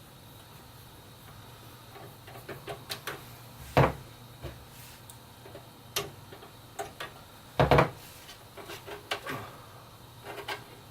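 Light clicks and taps of PC parts being handled inside a computer case, with two louder knocks about four and eight seconds in.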